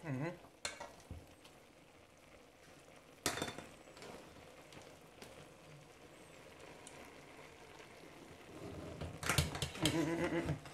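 Steel mesh strainer knocking against the rim of an aluminium cooking pot as cooked basmati rice is tipped out onto the chicken, with one sharp metal knock about three seconds in and a soft patter of grains. A voice and a few more knocks come near the end.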